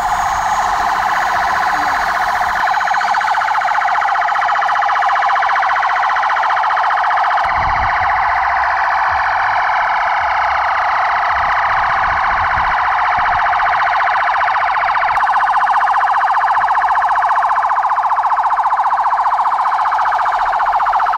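Several police car sirens sounding together in a steady, loud, rapidly warbling wail.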